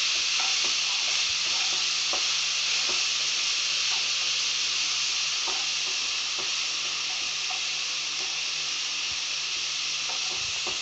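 Chopped onions, garlic and capsicum sizzling steadily in olive oil in a non-stick pan as the onion cooks down toward caramelizing, with a few faint clicks scattered through.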